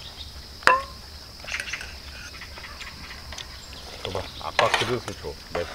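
Insects chirring steadily and high-pitched in the grass, with one sharp click about a second in and a few low voices near the end.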